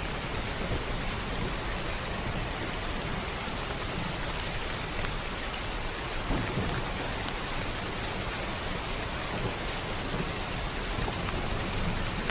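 Heavy rain drumming steadily on a roof, with scattered sharp drop ticks and low rumbling thunder underneath.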